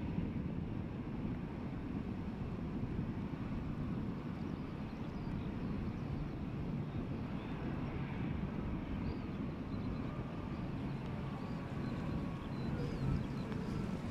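Jet airliner engines running at low power as the plane taxis, a steady low rumble.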